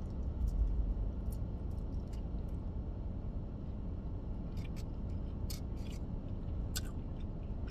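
Close-up chewing of a mouthful of barbecued rib tip, the bark on the outside tough and chewy, with a few sharp clicks from the mouth. Under it runs a steady low hum.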